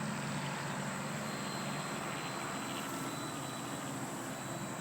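Battery-powered electric RC aerobatic plane's motor and propeller running in flight, a steady buzz with a thin high whine from about a second in.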